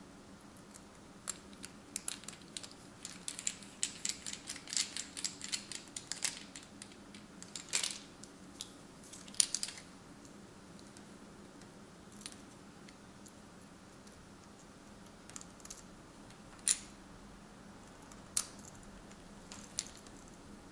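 Light clicks and taps of small parts as the HTC One M9's bare frame and a precision screwdriver are handled, over a faint steady hum. A dense run of clicks fills the first half, then single clicks come every second or two.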